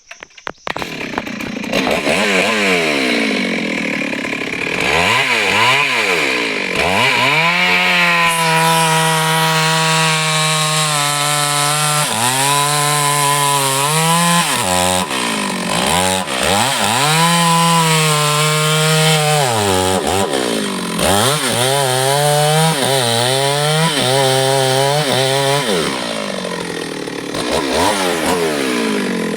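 Stihl MS 382 two-stroke chainsaw running, revved up and down several times and held at high speed for a few seconds at a time before dropping back toward idle near the end.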